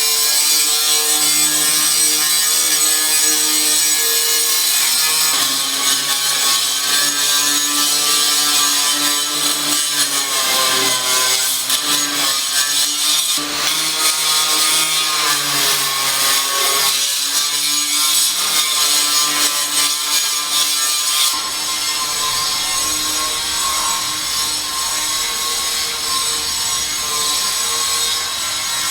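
A power tool cutting continuously with a steady whine and a loud hiss. Its pitch shifts about five seconds in and again about two-thirds of the way through, and wavers up and down in between as the cut loads it.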